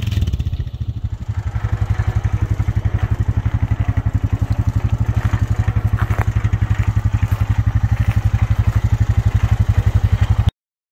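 Honda Rancher 420 ATV's single-cylinder engine settling to idle about a second in, then idling with a rapid, even chug. The sound cuts off suddenly near the end.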